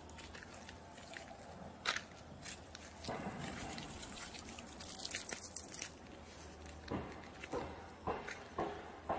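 Footsteps and dogs' paws on a dirt trail strewn with dry leaves, with leaves rustling. From about seven seconds in, the steps come evenly, about two a second.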